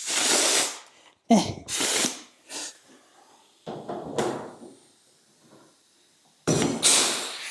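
Rivet gun setting pop rivets into the sheet-metal rear body panel: a series of about five short, sharp bursts of noise with quiet gaps between them.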